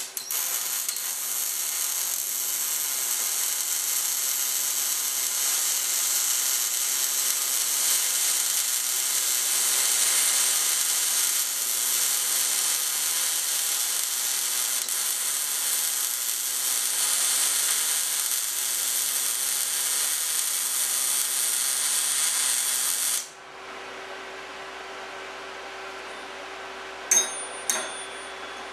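Kemppi MIG welder arc in short-circuit transfer, laying a fillet weld on a steel T-joint: a steady hiss with a faint hum for about 23 seconds, cutting off abruptly when the arc stops. A few sharp clicks follow near the end.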